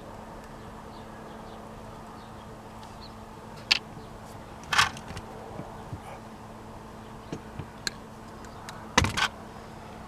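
Scattered clicks and knocks of hands working with tools and parts, a few of them sharp, including a quick double knock near the end, over a faint steady hum.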